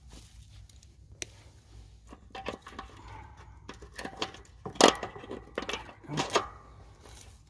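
A thin metal tool scraping and clinking against the steel mower deck and the washers at the spindle mount, with short metallic rings. The loudest clanks come about five and six seconds in.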